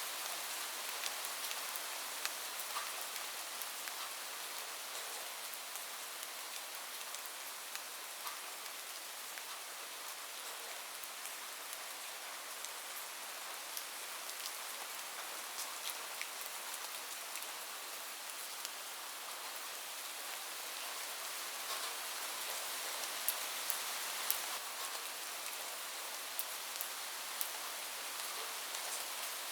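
Heavy rain falling on a roof: a steady high hiss with sharp individual drop ticks scattered through it, a few louder ones a little past the two-thirds mark.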